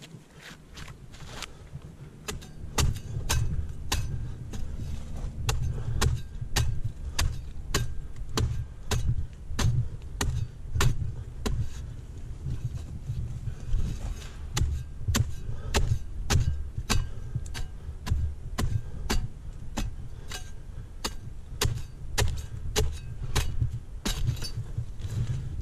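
A hand pruning blade chopping into Canary Island date palm fronds with repeated sharp strokes, about two a second, starting about two seconds in, over a low rumble.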